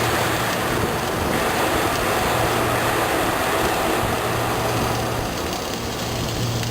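Welding arc hissing and crackling from an automatic vertical-up welding carriage, starting suddenly and stopping about six seconds later, over a steady low hum.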